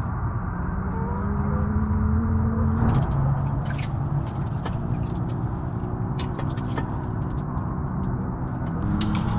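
A steady low motor hum whose pitch shifts a little about three seconds in and again near the end, with scattered small clicks over it.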